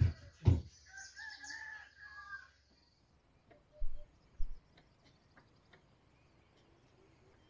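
A rooster crows once, a drawn-out call from about one second in to nearly three seconds in. Loud low thumps come at the start and about half a second in, with two more around four seconds in.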